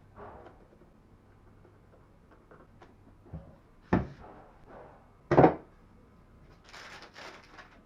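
Handling noises with two sharp knocks, one about four seconds in and a louder one about a second and a half later, then about a second of scraping or rustling near the end.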